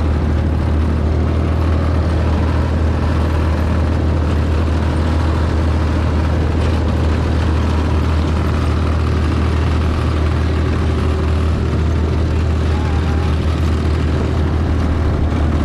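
A moving vehicle: a steady low engine drone with dense road and wind noise that doesn't change.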